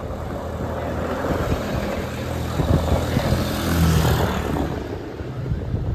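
Ocean surf on a beach: a wave's rush swells to a peak about four seconds in and then fades. Wind buffets the microphone throughout.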